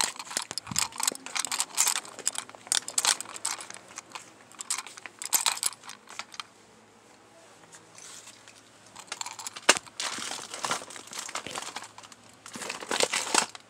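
Plastic packaging and cardboard crinkling and clattering as packaged goods on store shelves and in a cardboard box are rummaged through. There is a quieter lull in the middle and a sharp click about ten seconds in, then the rustling picks up again.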